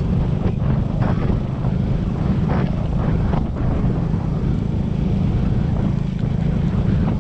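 A 125 cc enduro motorcycle's engine running steadily at cruising speed in third gear, with wind on the microphone. A few short knocks come in over the first few seconds.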